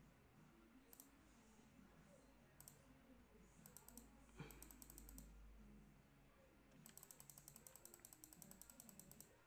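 Faint clicking from a computer desk: a few single clicks, then a fast, even run of about ten clicks a second for roughly two and a half seconds near the end.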